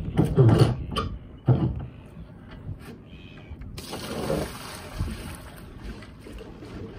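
A bucket of seawater on a rope knocks and splashes as it is hauled aboard, then about four seconds in it is tipped out and water pours and splashes across the deck to wash it.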